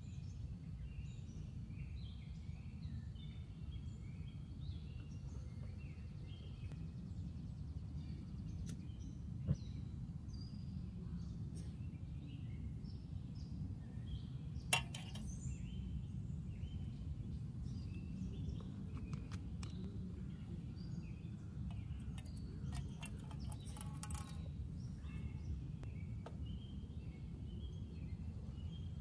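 Birds chirping and calling over a steady low outdoor rumble, with two sharp clicks, the first about nine seconds in and the second about fifteen seconds in.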